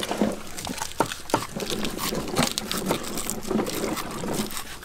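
Handling noises of raw fish being worked by several hands over a wicker basket: lemongrass stalks pushed into the fish, with irregular small knocks, clicks and rustles.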